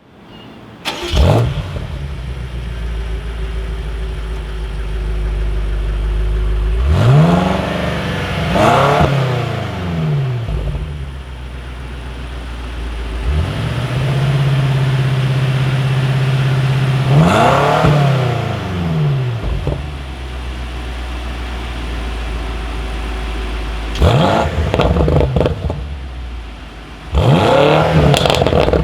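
BMW M5 Competition's twin-turbo V8 exhaust revved repeatedly, dropping back to a steady idle between the revs, with pops and crackles as the revs fall.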